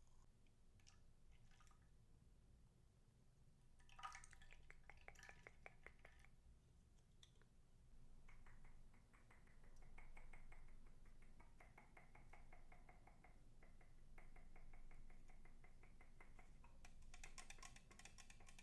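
Faint wet, sticky clicking of slime being worked by hand, in dense runs of tiny crackles: a short run about four seconds in, then a longer, steadier one from about eight seconds on.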